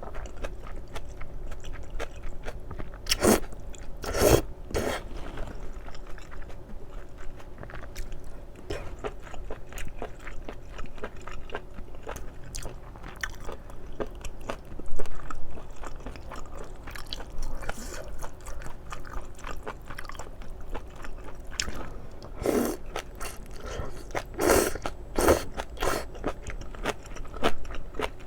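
Close-miked chewing of spicy stir-fried small octopus (nakji-bokkeum) and somen noodles: a steady run of small wet mouth clicks and squishes, with a few louder bites a few seconds in and again near the end.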